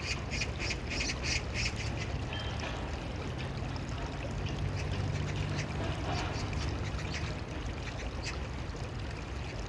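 Stream water running and burbling, with quick splashy flicks for the first couple of seconds and a steady low hum underneath.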